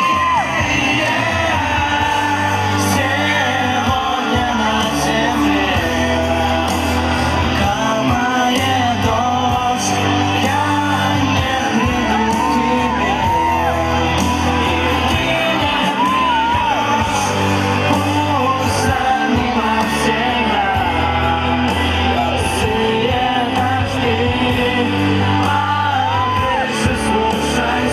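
Live pop band playing in a large hall, with singing and crowd shouts over the music.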